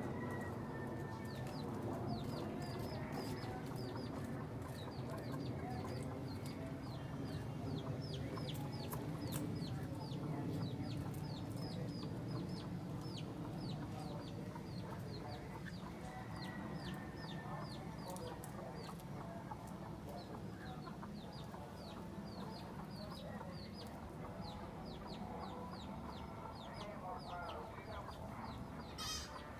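Chickens clucking, with short high chirps falling in pitch repeating about three times a second, and a brief sharp click near the end.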